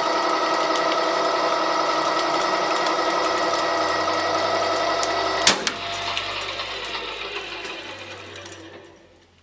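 Gear-driven Wheeler-Rex 6590 pipe threading machine running with a steady whir and whine. About five and a half seconds in there is a sharp click, after which the machine winds down and is nearly silent near the end.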